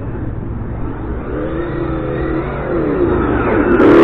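Simulated engine sound from the ESS T.T sound module's speaker on a 1/8 Hobao Hyper GT-B brushless RC car, revving up and down as the car drives. It gets much louder near the end as the car comes close.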